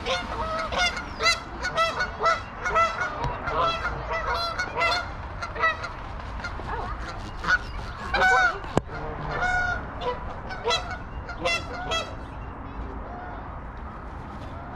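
Geese honking over and over, their calls overlapping, as the flock takes off and flies away. The honking is loudest about eight seconds in and thins out after about twelve seconds.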